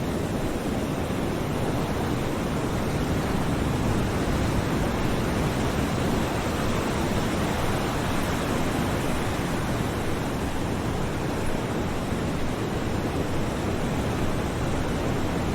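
Ocean surf: a steady rushing wash of waves with little rise and fall.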